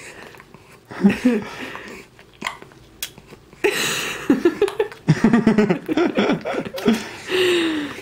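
A baby with hiccups sucking and smacking on a pacifier, with several short fussy whimpers and a longer falling whine near the end.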